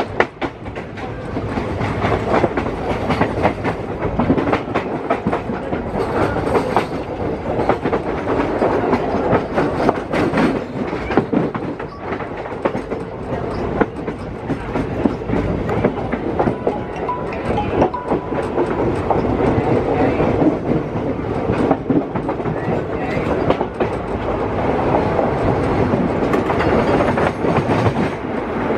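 Indian Railways express passenger train running past, its wheels clattering continuously over the rail joints.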